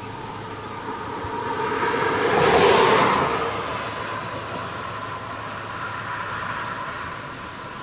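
A vehicle passing by, growing louder to a peak about two and a half seconds in, then fading away.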